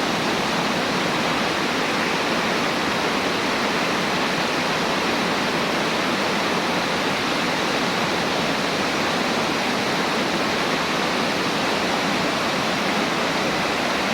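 Steady, unbroken rush of falling water, as from a waterfall or fast stream.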